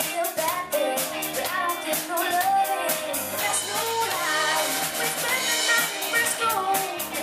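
Young live band playing a song: a girl's voice sings the melody over a drum kit, electric guitars and keyboards with a steady beat.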